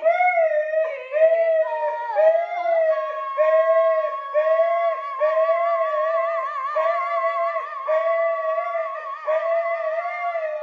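A Siberian husky and a woman howling together. A string of shorter, lower howls repeats about once a second, and from about three seconds in one long, high, wavering note is held over them almost to the end.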